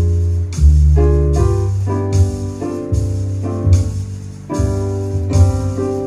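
Solo jazz piano played on a keyboard: sustained bass notes under chords, with a new chord struck about once a second.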